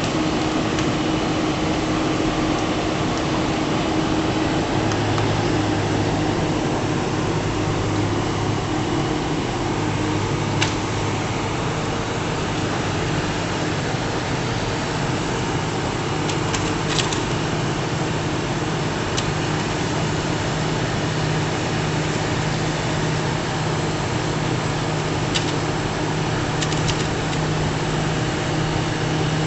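An engine running steadily, a continuous low drone with a few faint ticks.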